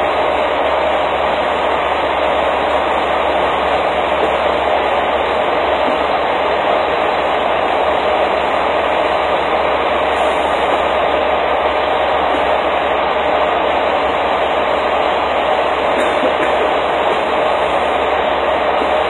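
Steady, loud drone of running machinery at a truck fuel island, unbroken and even in level, with no distinct rhythm.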